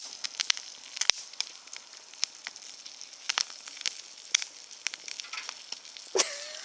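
A microwave popcorn bag burning in an open flame: a steady sizzling crackle with scattered sharp snaps at uneven intervals.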